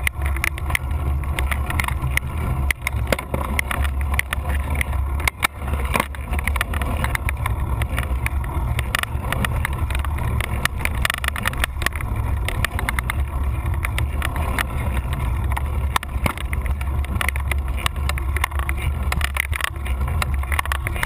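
Wind buffeting the microphone of an action camera on a moving bicycle, a steady low rumble, with frequent small rattles and knocks from the bike and camera mount jolting over the rough tarmac.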